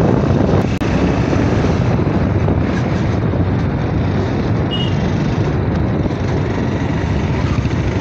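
Motorcycle being ridden along a road: steady engine and wind noise.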